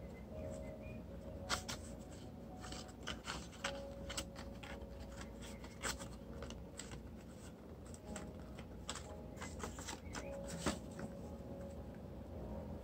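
Stiff green paper of a glued box being handled and pressed flat by fingers: irregular crackling and rustling with scattered sharp clicks and taps, two of them louder, about a second and a half in and near the end.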